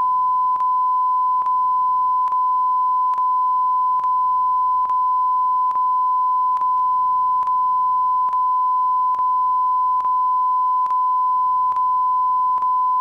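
A continuous single-pitched electronic beep tone playing from a VHS tape, steady and loud, looping with a faint click slightly more often than once a second.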